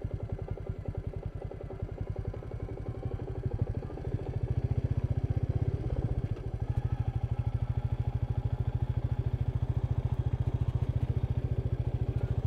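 Royal Enfield Meteor 350's single-cylinder engine running under a little throttle, a steady train of exhaust pulses that grows louder about four seconds in.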